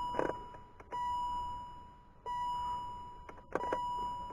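BMW E39 warning chime sounding over and over, a single ding that fades out about every second and a half. A few faint clicks fall between the dings.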